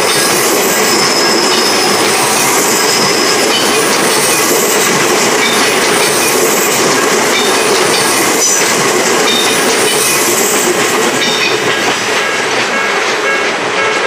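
An Odakyu Romancecar limited-express train runs past at close range, its wheels rumbling and clattering on the rails. A level-crossing warning bell keeps dinging over the train noise. The train noise eases off near the end as the last car clears the crossing.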